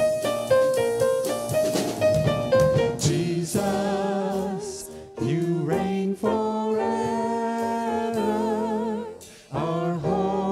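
Worship song with piano accompaniment. Piano notes play alone at first, then a singing voice with vibrato comes in about three and a half seconds in, pausing briefly twice.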